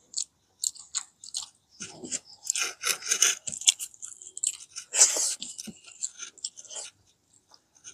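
A person chewing crispy deep-fried fish, a run of irregular crunchy bites and mouth noises with brief pauses.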